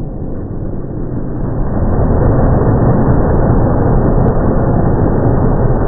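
Monster truck engine running, heard as a deep, smeared rumble because the slow-motion playback slows it down; it grows louder about two seconds in.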